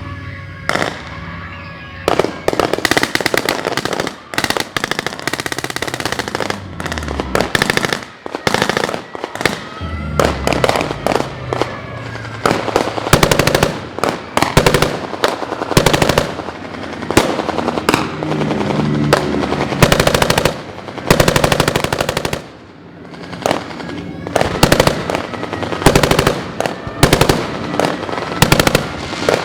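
Machine guns firing in long, rapid bursts, with a short lull about three-quarters of the way through, over the steady wail of an air-raid siren.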